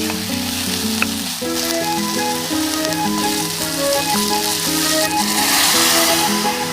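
Food sizzling in a hot pot, a steady crackling hiss that grows denser in the later part, under background music with a plucked-sounding melody.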